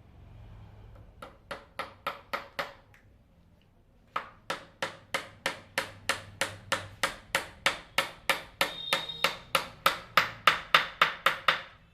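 Hammer blows on a wooden chair being repaired: a short run of about six strikes, a brief pause, then a long even run of about three strikes a second that grows louder near the end.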